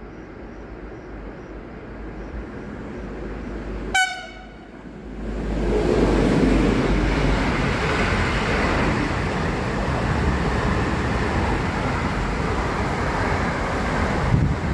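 Electric freight train approaching, giving one very short horn toot about four seconds in, then its container wagons rolling past close by with a loud, steady rumble of wheels on rail.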